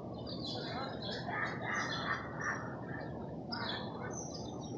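Small birds chirping in quick, repeated short notes over a steady background hum of city street traffic.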